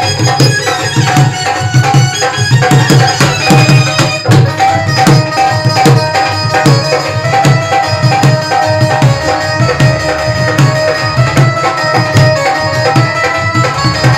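Dholak drum played by hand in a fast, steady rhythm, with a held instrumental melody line over it: live folk music accompaniment without singing.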